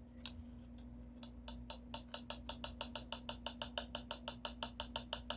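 A rapid, even run of small sharp clicks that starts about a second in and speeds up to roughly seven clicks a second, over a faint steady hum.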